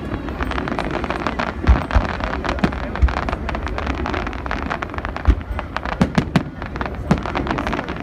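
Large fireworks display: a dense, continuous crackle of many small bursts, with several heavier booms standing out through the run.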